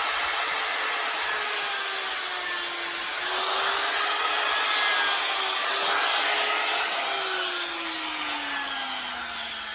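Harbor Freight die grinder with a Saburrtooth flame-shaped burr running and grinding into wood, boring a pupil hole in a carved owl's eye. Its motor tone slides down as it spins down over the last few seconds.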